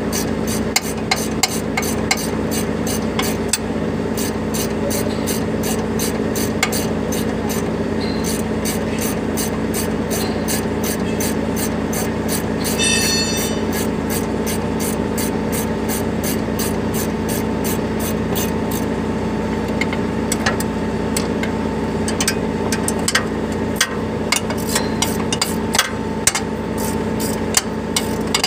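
An engine idling steadily, with a fast regular ticking over the hum, and scattered metallic clinks of hand tools on truck fittings, more of them in the second half.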